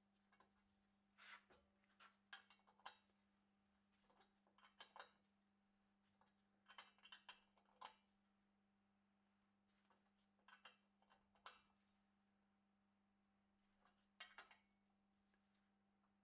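Faint, scattered metallic clicks and clinks of a hex key being seated in and turned on a bicycle crank-arm bolt, coming in short clusters every second or few, over a steady low hum.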